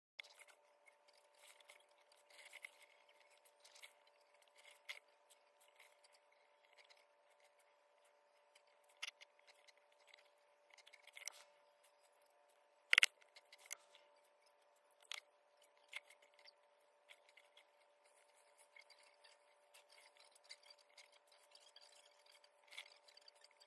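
Faint scratching and scraping of a fine-tip felt pen drawing on paper, with scattered light taps and clicks as a plastic circle-template ruler is handled and moved; one sharper click about 13 seconds in. A faint steady hum lies underneath.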